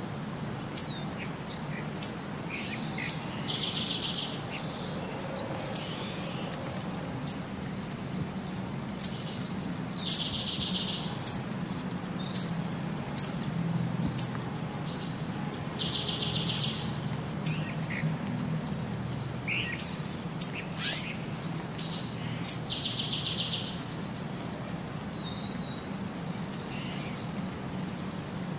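Birds chirping and singing: short, sharp high chirps every second or so, and the same buzzy trilled phrase recurring about every six and a half seconds, over a faint low hum.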